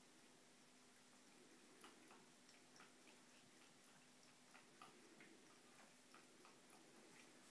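Faint, irregular soft clicks of a Scottish Fold cat lapping water from a sink with its tongue.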